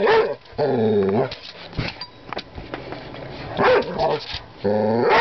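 A young dog barks at his own reflection in a mirror: about four loud barks, some drawn out with a rise and fall in pitch. Between the barks come a few sharp clicks.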